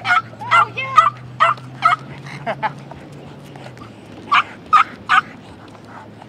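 A dog barking in quick runs of short, sharp barks, with a pause in the middle. A low steady hum sits underneath and fades out a little before the end of the first half.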